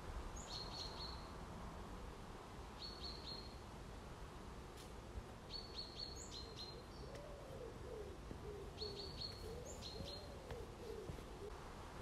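A small songbird repeating a short high call every two to three seconds, each a quick downward note followed by a few rapid ticks. From about seven seconds in, a faint low cooing runs under it for a few seconds.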